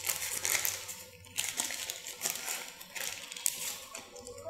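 A thin translucent wrapper crinkling and rustling on and off in the hands as a clear phone cover is pulled out of it.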